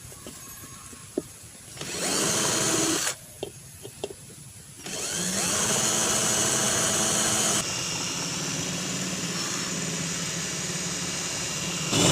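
Electric hand drill with a hole-cutting bit boring through the bottom of a melamine pot: a short run of about a second, a pause with a few light knocks, then a longer run of about seven seconds that eases a little in level partway through.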